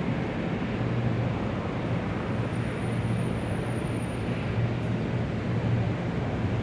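Large airport ambience: a steady wash of noise over a low, constant hum, with no distinct events standing out.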